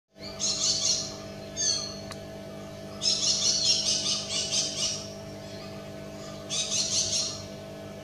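Malabar parakeet giving four bouts of rapid, shrill chattering calls, the longest lasting about two seconds, over a faint steady hum.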